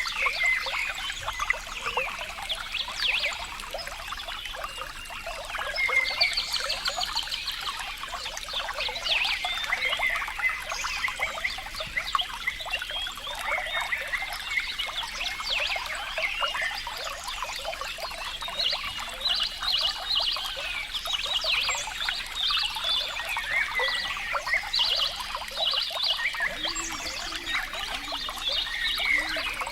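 Running water trickling, with many small animals chirping and trilling over it throughout. A few lower calls come in near the end.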